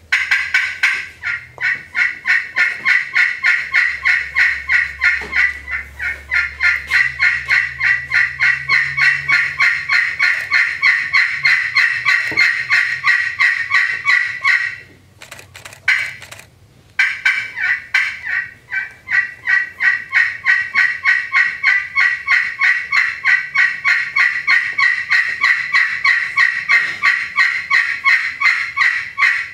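Friction turkey call played as a hen assembly call: a long run of rapid, evenly spaced hen yelps. About halfway through it pauses for a couple of seconds with one short note, then a second long run follows.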